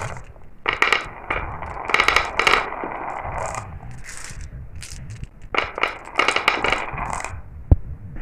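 Glass marbles rolling down a marble run, in bursts of rapid clicking and clacking over a low rolling rumble. A single sharp knock comes near the end.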